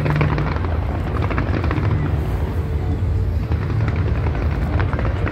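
Aerial fireworks bursting in quick succession: a continuous low rumble of booms with crackling on top, and a sharp bang right at the start.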